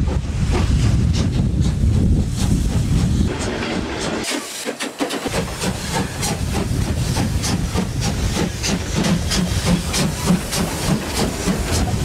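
Steam locomotive working under load, its exhaust chuffing in a regular rhythm with a hiss of escaping steam. The sound dips briefly about four seconds in, then the beats come sharper and closer as the engine passes.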